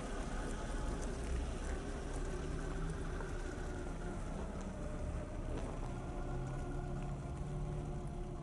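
Electric drivetrain of a Traxxas TRX-4 RC crawler whining steadily while it pulls a loaded trailer over gravel, over a low rumble. The pitch of the whine drifts slowly.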